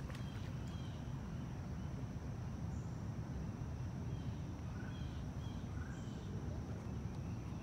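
Pond-side woodland ambience: a thin, steady high insect drone and a few short bird chirps over a steady low rumble.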